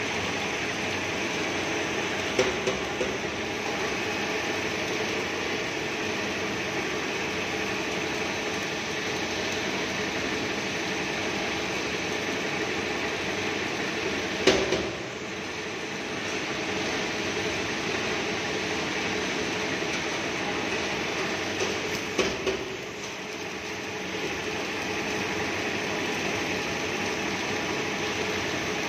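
Steady mechanical drone of LPG cylinder plant machinery at a circumferential seam welding machine, with a few sharp metallic knocks, the loudest about halfway through.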